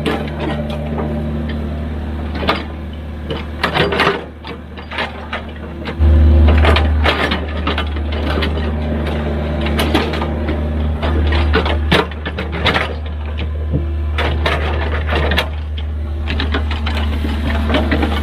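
Hydraulic excavator working: its diesel engine runs with a steady low drone that gets louder about six seconds in, over repeated metallic clanks and knocks.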